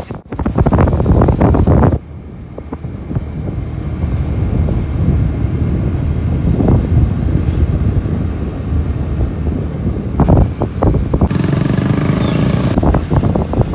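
Wind buffeting a phone microphone on a moving motorcycle, over the low rumble of the motorbike and its tyres on the road. The noise is loud for the first couple of seconds, drops, then surges again for a second or so near the end.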